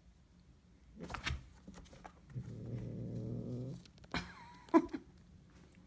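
Two tabby cats meeting through a pet carrier's door, hissing and growling at each other. A hiss comes about a second in, then a low growl lasting about a second and a half. A second hiss follows with a short falling yowl, and there is a sharp knock just before the end.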